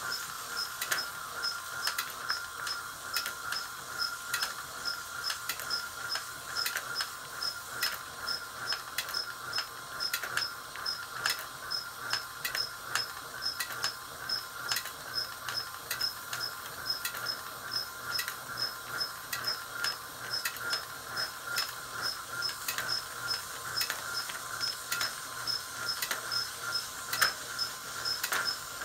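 Motor-driven destination roll sign from a 103 series electric train winding its film through the destinations. It gives a steady whine with regular ticking about twice a second.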